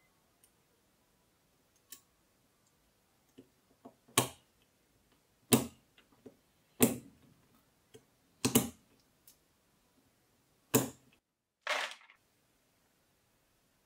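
Hard keyboard parts clacking as they are handled and fitted during assembly: about six loud, sharp clacks a second or two apart, with fainter clicks between.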